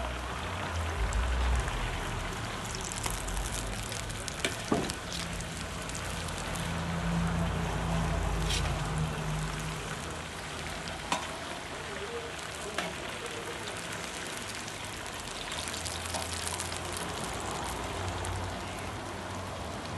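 Hot oil bubbling and sizzling steadily as chunks of food deep-fry in a large stainless steel pan. A few short clicks of the metal skimmer against the pan come through.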